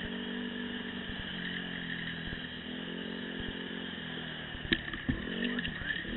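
Dirt bike engine running while riding, heard close up from a camera mounted on the bike, its pitch shifting a little with the throttle. A sharp knock comes about three-quarters of the way through, with a few lighter knocks after it.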